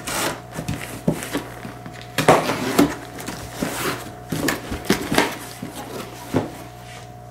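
Cardboard shipping box being opened by hand: packing tape scraped and pulled off the seam, then the cardboard flaps rustling and knocking as they are folded back. Irregular scrapes and knocks, with a longer ripping sound about two seconds in.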